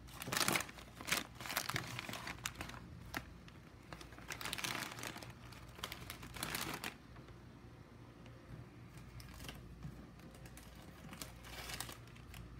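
Small plastic snack bags crinkling as they are picked up, shuffled and set down on a cloth-covered table, in a run of rustles over the first seven seconds, then quieter with a few more crinkles near the end.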